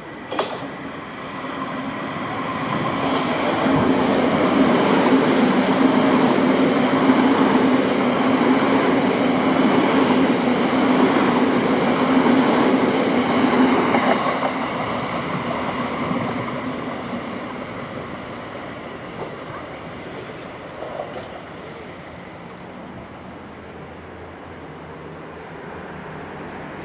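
Southern electric multiple unit train running past on the rails, with a steady motor hum and wheel noise. It swells over a couple of seconds, stays loud for about ten seconds, then fades away. A few sharp clicks come near the start.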